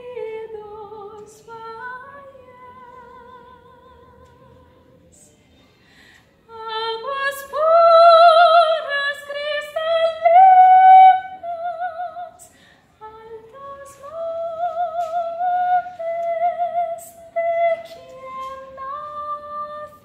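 Female classical singer performing a song with vibrato on held notes, accompanied by nylon-string classical guitar. A soft phrase fades away, then about six seconds in she comes in loud on high sustained notes, breaks briefly, and ends on a lower held note.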